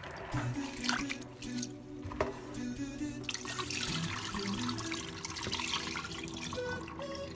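Water sloshing and splashing as split chickpeas (chana dal) are swished by hand in a bowl of rinse water, then the cloudy water is poured off the dal. Background music plays throughout.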